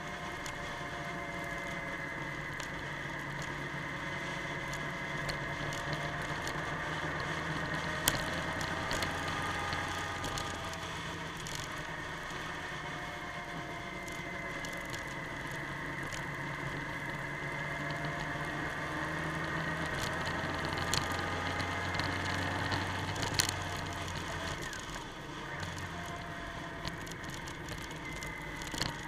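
Motorcycle engine running while riding, its pitch rising and falling slowly with the throttle over a steady rushing noise. Two sharp knocks break in, one about a third of the way in and one near the end.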